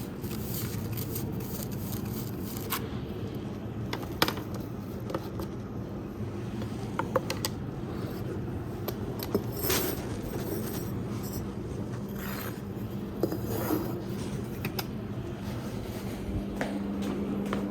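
Ash being cleared from a fireplace: irregular scrapes, clinks and a few sharp knocks of a tool against the hearth and ash, over a steady low hum.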